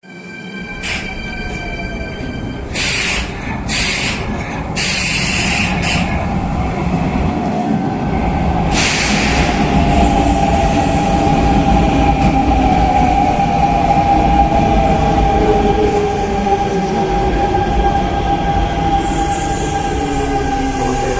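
Hanshin electric train running, with a low rumble building up. Several short sharp sounds come in the first six seconds, then from about nine seconds a steady whine with slowly gliding tones.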